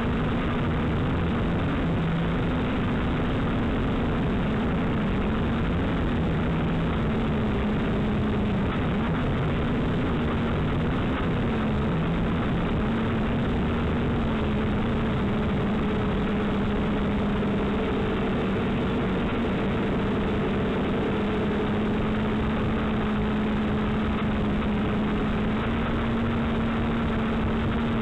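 JJRC H8C quadcopter's motors and propellers droning in flight, heard close up through the drone's own onboard camera microphone. The steady hum wavers in pitch as the throttle changes in the first half and holds steadier later, over a constant rushing noise from the propellers.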